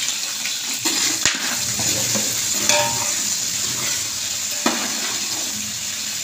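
Sliced onions sizzling in hot ghee in a large aluminium pot, a steady frying hiss, while a metal spoon stirs them, with a few clinks against the pot.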